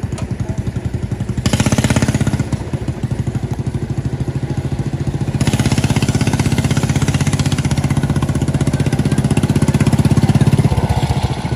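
A homemade chopper-style trike's small lawn-mower-type engine running with a rapid, even chug as it rides slowly by. It grows louder as the trike passes close, loudest shortly before the end.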